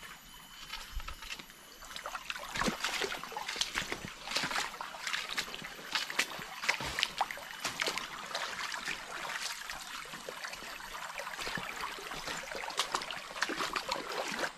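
Shallow stream running over stones and debris: a steady trickling with many small, irregular splashes.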